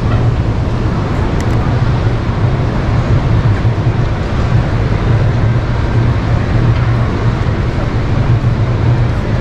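Steady low rumble and noise of a large exhibition hall's ambience, with a strong low hum running evenly throughout and no distinct events.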